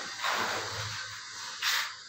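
A wide steel putty blade scraping Birla wall putty across a plastered wall in sweeping strokes. There are two scraping hisses, one just after the start and one about a second and a half in.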